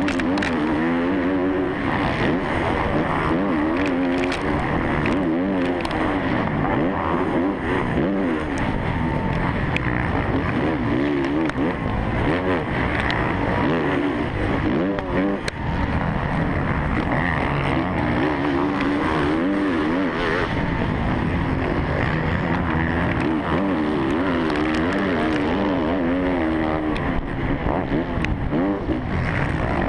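Motocross bike's four-stroke engine revving hard and dropping back again and again as the rider shifts and works through the track, with other bikes' engines around it. Wind buffets the microphone, and now and then there are sharp ticks of thrown dirt.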